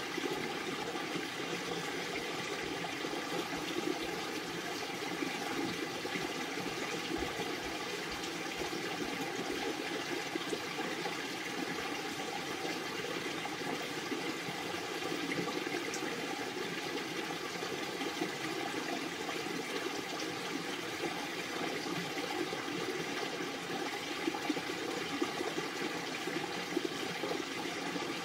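Steady rushing noise of running water, even and unbroken.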